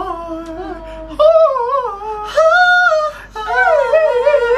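A voice singing in a high, falsetto-like register: a few long, wavering held notes that slide up and down.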